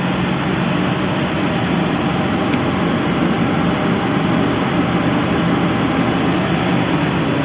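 1981 Buick Regal's carbureted engine idling steadily on fast idle from a cold start after three months of storage, heard from inside the cabin.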